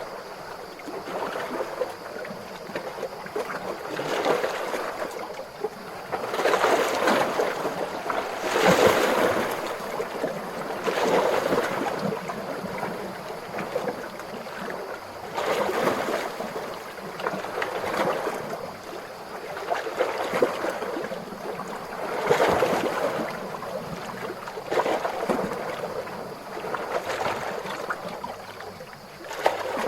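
Gentle ocean waves lapping and washing on the shore, swelling and fading every two to three seconds.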